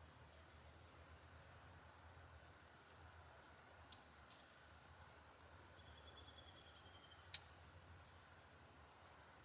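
Small songbirds calling faintly: a string of high, thin chirps about three a second, a few sharp clicks, then a fast trill lasting about a second and a half.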